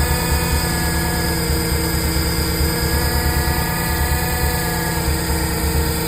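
Subaru Impreza WRX STI (GDB) engine running steadily at an even speed, with a low pulsing throb under a steady hum. The owner questions whether a noise in it is abnormal and due for repair.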